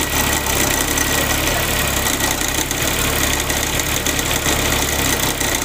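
Suzuki FX's three-cylinder engine idling, with a steady high tone over the low hum. The noise sounds like a worn alternator bearing but comes from the alternator's mounting bracket working loose, with bolts missing, so that it vibrates.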